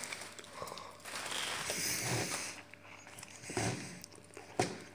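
A person breathing hard through the nose, a few noisy breaths, the longest about a second in.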